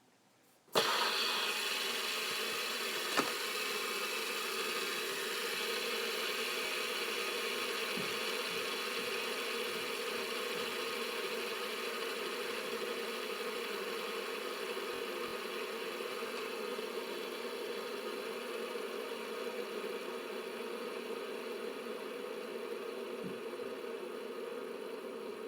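Fidget spinner flicked into a spin about a second in, its bearing giving a steady whir that slowly fades as it spins down. A single small knock comes about three seconds in.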